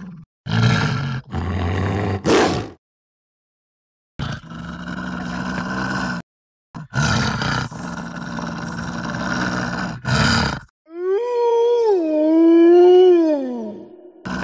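Wolf sound effects: a series of rough growls in bursts of one to four seconds with short gaps, then a single long howl starting about eleven seconds in, wavering and then falling in pitch at its end.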